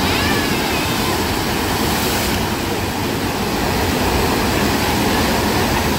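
Steady rush of water pumped over a surf-simulator wave ride, a sheet of churning white water running the whole time.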